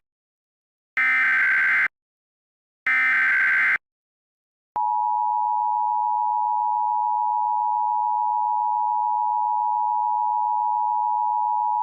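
Emergency Alert System SAME header: two short bursts of warbling data tone, each just under a second, about two seconds apart. About five seconds in they give way to the steady two-tone EAS attention signal, which holds.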